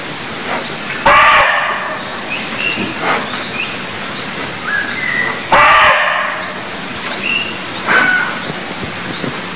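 Barking deer (muntjac) calling: two short, sharp barks about four and a half seconds apart. Under them run repeated short high chirps and a few brief whistles.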